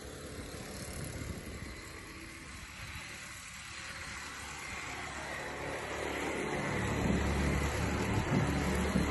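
Small petrol engine of a radio-controlled model boat running out on the water. The sound grows louder over the last few seconds.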